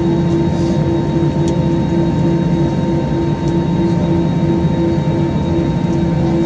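Airbus A321 cabin noise at a window seat over the wing: the jet engines idling while the plane rolls slowly on the ground, a steady hum with a low tone that pulses on and off rapidly.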